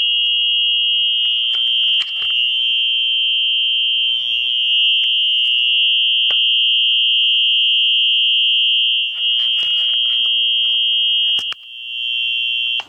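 A function generator sounding through its speaker, imitating a Wheelock EH-series electronic fire alarm horn: a steady, continuous high-pitched electronic tone. The level dips briefly about two seconds in and twice near the end.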